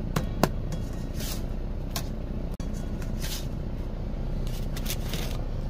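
Steady low rumble of the idling truck, with a few sharp clicks and short scrapes of a metal spatula against the electric skillet as a grilled cheese sandwich is lifted out onto a paper plate.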